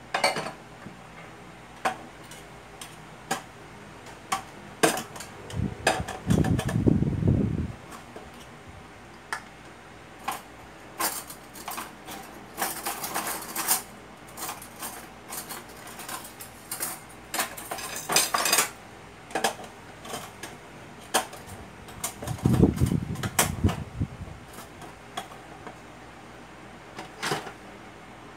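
Washed cups and dishes clinking and knocking as they are handled at a kitchen sink and set into a plastic dish rack. There are a few short hissing rushes in the middle and two low rumbling thuds, one early and one near the end.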